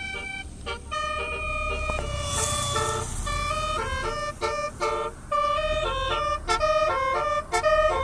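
A bus's telolet basuri musical horn playing a melody of held, stepped notes, breaking into quick short toots near the end, over a low rumble.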